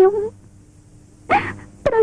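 A woman speaking Khmer in a tearful, crying voice, in short broken phrases over a faint steady hum.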